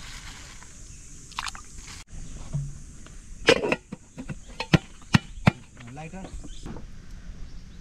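A handful of sharp knocks: one about three and a half seconds in, then three more in quick succession about a second later, with brief faint voice sounds between short edited clips.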